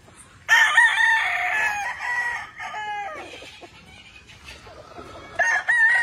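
Gamefowl roosters crowing: one long crow starting about half a second in and lasting over two seconds, then a second crow near the end.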